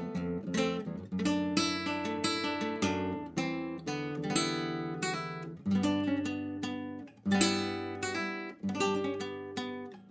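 Solo acoustic guitar playing an instrumental piece: a run of picked notes and chords, each ringing out, with short pauses about seven seconds in and near the end.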